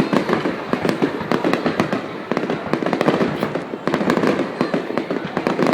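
Fireworks going off in rapid succession: a dense, continuous crackle with many sharp bangs layered over one another.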